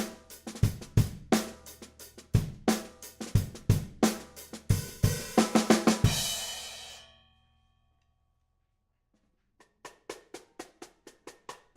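Drum kit groove with a 14 x 6.5 inch Brady jarrah block snare drum on the backbeat over kick drum and hi-hat, ending about six seconds in on a cymbal that rings and dies away. After about two seconds of silence, quieter strokes start again near the end.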